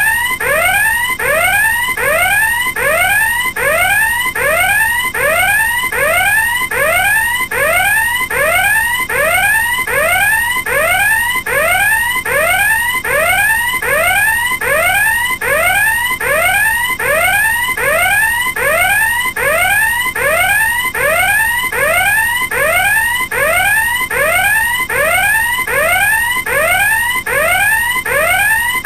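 Alarm sounding a repeated rising whoop: each short tone sweeps upward in pitch and restarts, about one and a half times a second, without a break.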